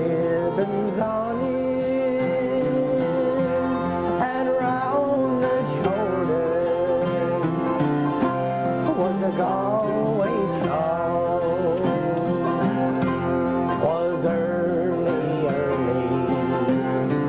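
A man singing a song, accompanied by two acoustic guitars and a bass guitar.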